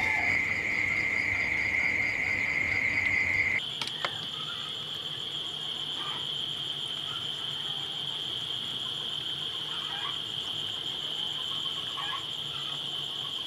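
Crickets chirping in a steady, unbroken high trill. About three and a half seconds in, the sound abruptly drops in level and a higher-pitched cricket trill carries on.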